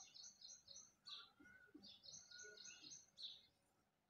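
Near silence with faint, high bird chirps, given in two quick runs of four or five short notes each, one at the start and one about two seconds in.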